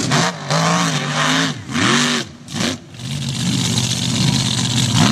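Mega truck's engine revving hard through a mud pit, its pitch swinging up and down, with a short lull about two and a half seconds in before the revs climb again.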